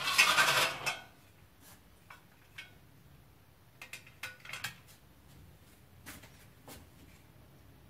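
A short scraping rustle, then a scatter of light clicks and knocks of dishes and utensils being handled.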